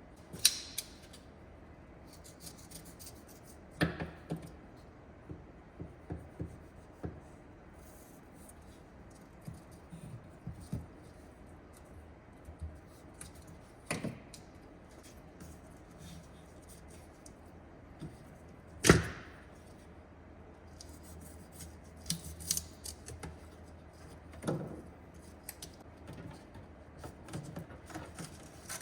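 Scattered clicks, knocks and scrapes of hand tools and metal parts being handled, irregular and spaced out, with one sharper knock about two-thirds of the way through.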